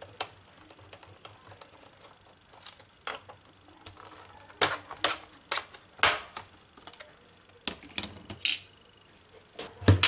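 Plastic clicks and snaps as the hard disk and RAM compartment door of an Acer Aspire V3 laptop is worked loose and pried off, with light clicks at first and a run of louder snaps about halfway through and again a couple of seconds later.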